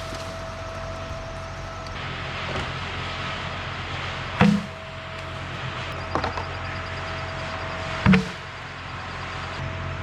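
Two loud thumps about four seconds apart, with a few lighter knocks between them, over a steady engine hum.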